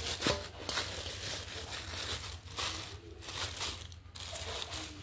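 Plastic bag crinkling and rustling in quick, irregular bursts as it is handled among fish in a basin.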